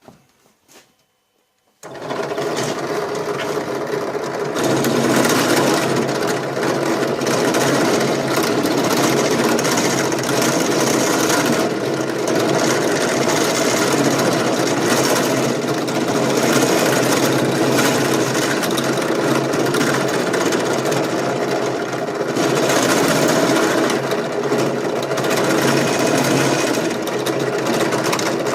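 Drill press starting up about two seconds in, then a wood router bit in its chuck milling a cast-aluminium part, a loud, steady cutting chatter over the motor's hum that grows louder a couple of seconds after start-up.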